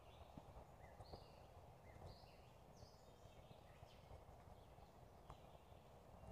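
Faint woodland ambience: songbirds calling in short high chirps several times, over soft footsteps on a dirt path.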